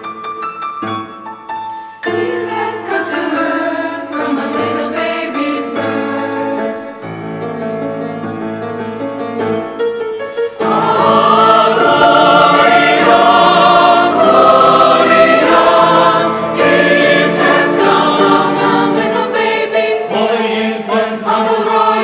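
Choir singing a Christmas bell carol in a choral arrangement. The music swells suddenly to a much louder, fuller passage about halfway through.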